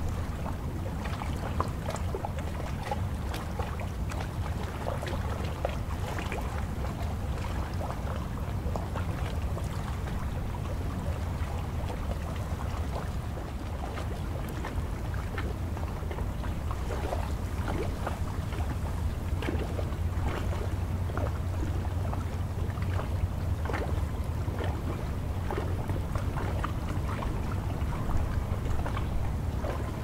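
Choppy water lapping and splashing at the shore in many small, irregular splashes, over a steady low wind rumble on the microphone.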